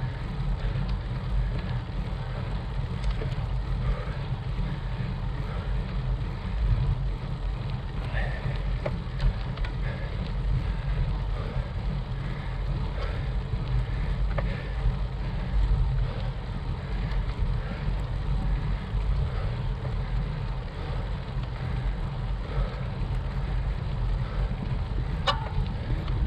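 Wind rumbling on the microphone of a camera riding on a bicycle climbing a paved road, a steady low rumble. A single sharp click near the end.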